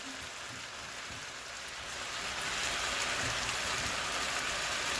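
Diced chicken breast and potatoes frying in a skillet with freshly added diced tomato on top: a steady sizzle that grows a little louder about two seconds in.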